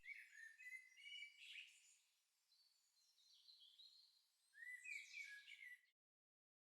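Faint songbirds chirping and trilling in short high notes, with a second burst about four and a half seconds in; the sound cuts off abruptly near the end.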